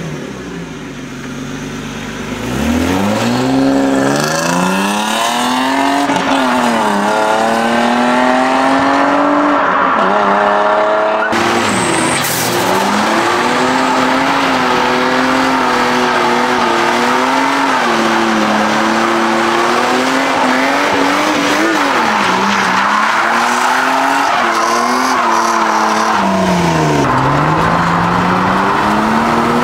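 A car engine revving hard and rising in pitch, then, about a third of the way in, held at high revs with the tyres spinning and squealing in a burnout. The revs dip and climb back a few times.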